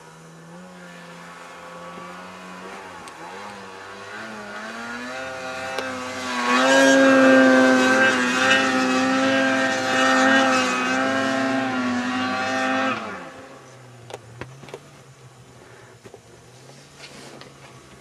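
Snowmobile engine revving up and held at high revs, loudest in the middle, then dropping away suddenly about thirteen seconds in to a faint low hum.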